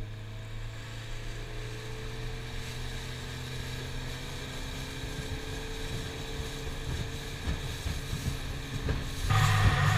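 Boat motor running at a steady speed, its pitch creeping slightly upward. Near the end it cuts abruptly to a louder, rougher rumble with wind noise.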